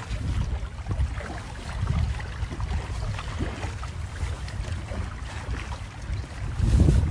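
Outdoor wind buffeting the microphone: an uneven low rumble that swells loudest near the end, with faint scattered ticks over it.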